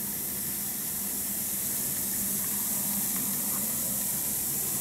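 Sunlife multivitamin effervescent tablet fizzing in a glass of water: a steady hiss of carbon dioxide bubbles as the tablet dissolves.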